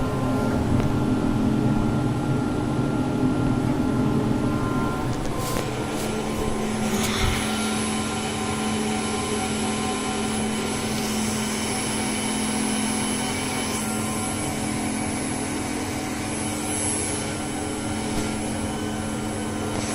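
VENO UC481-1325 CNC router with automatic tool change running: a steady machine hum and whine made of several held tones over a noisy wash, with a couple of short knocks around six to seven seconds in.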